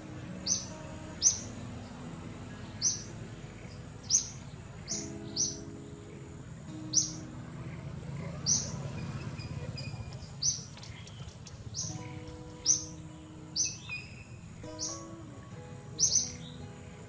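A bird calling with short, sharp, high chirps, about one a second and irregularly spaced, over soft background music with held notes.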